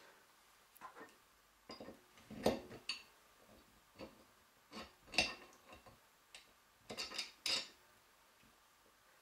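Metal parts of a heavy hand-operated grommet press knocking and clinking together as it is assembled: irregular sharp knocks, the loudest about two and a half and five seconds in, with a quick cluster near the end.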